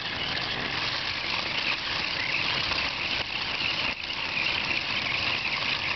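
Toy remote-control car's small electric motor and gears whirring steadily as it drives.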